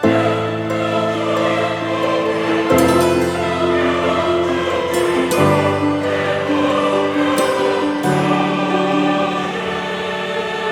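Background music with a choir singing held notes over a sustained accompaniment, the chords changing every few seconds.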